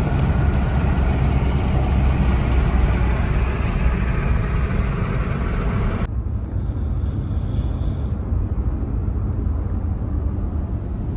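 Steady road noise inside a moving car: a low rumble of engine and tyres with a hiss of wind. About six seconds in the hiss drops away and the rumble becomes more muffled.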